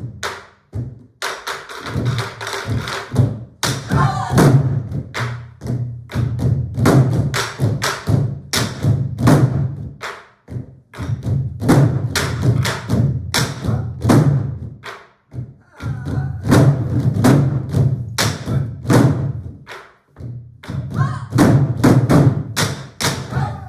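An ensemble of Korean buk barrel drums played together in rhythm: deep thumps on the drumheads mixed with sharp, dense stick strikes, broken by a few short pauses.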